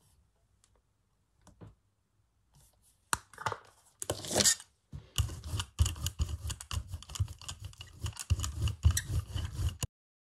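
A brayer rolling acrylic paint out over a gel printing plate: a dense, sticky crackle of rapid ticks with a low rumble, starting about five seconds in and stopping suddenly near the end. It follows a few faint clicks and a short hiss as paint is squeezed from a bottle.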